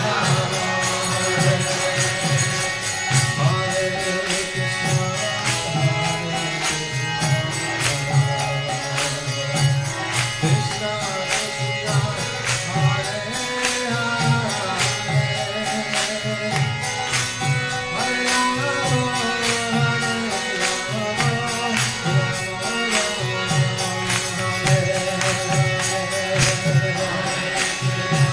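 Background music with a steady, regular beat.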